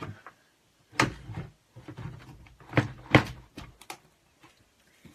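A parcel being jabbed and scraped with a hair clip to break open its tape: a few sharp knocks with rustling of the packaging between them, the loudest about three seconds in. The clip is too blunt to cut through.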